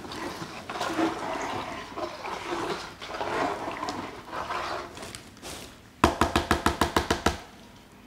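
A plastic spoon stirring caustic soda into water in a plastic basin, swishing and sloshing unevenly. About six seconds in, a quick run of about ten sharp knocks, roughly seven a second, the loudest sound here.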